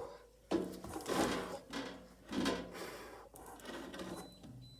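Rubbing and scraping against wood in three or four short stretches of about a second each.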